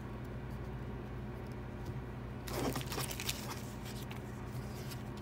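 Paper-stock baseball cards rustling and clicking as a stack is thumbed through and cards are set down on a pile. The handling comes in a short burst about two and a half seconds in, over a steady low hum.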